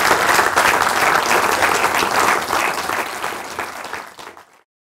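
Audience applauding, a dense patter of many hands clapping that dies down over the last second or two and then cuts off abruptly.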